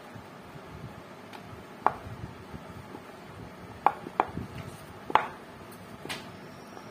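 Wheat dough being rolled out with a wooden rolling pin on a round rolling board: five sharp, irregular knocks as the pin and board clack, over a steady hiss.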